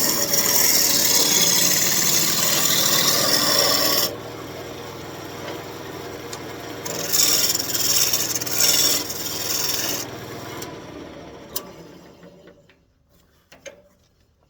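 Turning tool cutting a spinning elm blank on a wood lathe: a loud, continuous hiss of shaving wood for about four seconds, then two or three shorter, lighter cuts over the steady hum of the lathe. Near the end the lathe runs down and stops.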